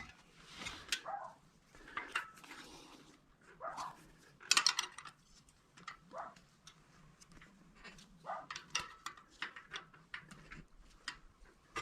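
Hand tools working on a bicycle chain tensioner: irregular metal clicks and clinks of a wrench on the fittings while the loose chain is taken up, with a few short falling squeaks along the way.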